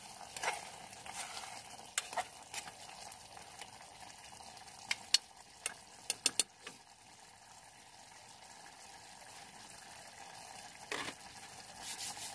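Food frying in a pan with a steady sizzle. A spoon clicks against the pan a few times, mostly in a quick run around the middle.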